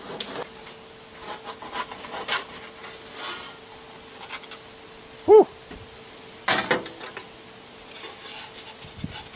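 Scraping and rubbing of an aluminium pizza peel as a raw pizza is slid off it onto a pizza stone on a kettle grill. A short squeak a little after five seconds is the loudest sound, and there is a sharp clatter about six and a half seconds in.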